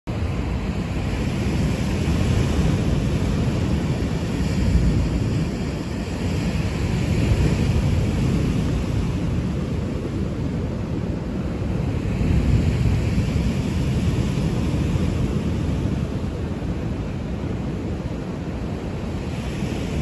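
Wind gusting on the microphone over waves breaking on the shore, a low rumbling noise that swells and eases every few seconds.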